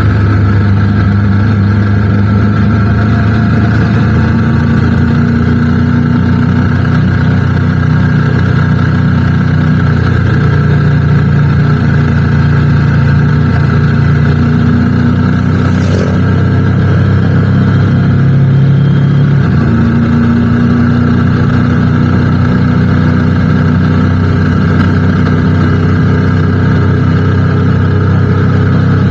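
Motorcycle engine running steadily under way, its pitch shifting a little now and then as the speed changes.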